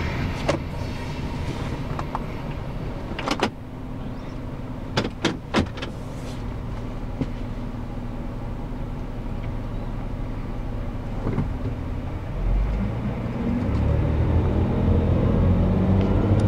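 Car engine idling, heard from inside the cabin at a railroad crossing as the end of a freight train clears, with a few sharp clicks in the first six seconds. Near the end a deeper engine rumble builds as vehicles start to move.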